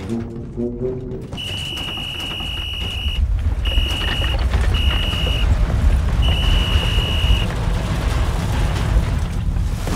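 A whistle blown in four blasts: one long, two short, then a longer one. Beneath it a low rumble builds steadily louder, and a few notes of music end about a second in.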